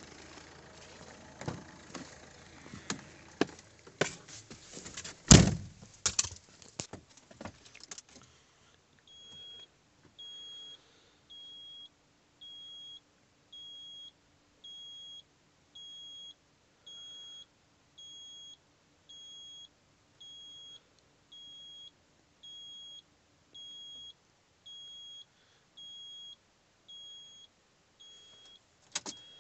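Van door handling: clatter and keys jangling, then a loud door thunk about five seconds in. After that, the Fiat Ducato's dashboard warning chime beeps steadily, about once a second, with the ignition on and the engine not yet running.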